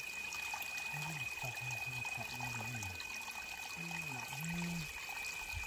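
Water trickling over rocks at a small forest seep, a steady splashing hiss. A thin steady high tone runs throughout, and faint low voices murmur under it.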